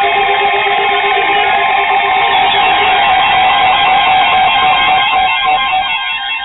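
NOAA Weather Radio alert tones: a loud, dense cluster of steady electronic tones over radio-narrow audio, with the single warning alarm tone near 1 kHz held through most of it.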